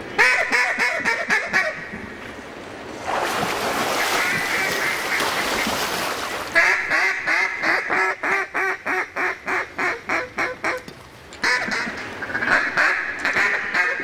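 Loud mallard quacking in runs of fast, evenly spaced quacks. A short run comes at the start, then a few seconds of rushing hiss, then a long run of about three quacks a second that fades away, and another run near the end.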